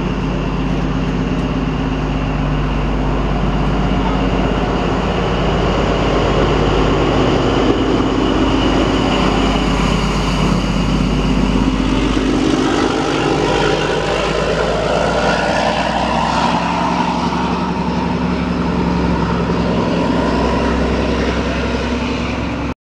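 XPT passenger train's diesel power car pulling out of the station under power, a loud steady engine drone whose pitch sweeps about halfway through as the power car passes and draws away.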